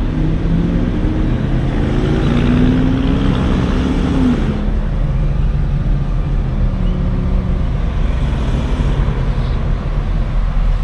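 Engine of a slowly moving vehicle, heard from inside the cab, with a steady low rumble. The engine note rises over a couple of seconds and drops about four seconds in, when a hiss also falls away.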